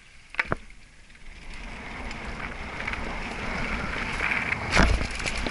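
Giant Reign mountain bike setting off down a dirt trail. Two sharp clicks about half a second in, then wind rush on the microphone and tyres rolling over dirt, growing steadily louder as speed builds. A loud thud comes near the end.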